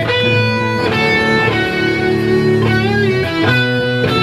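Electric guitar playing held chords live at a song's opening, the chord changing about every second, with one chord wavering in a bend about three seconds in.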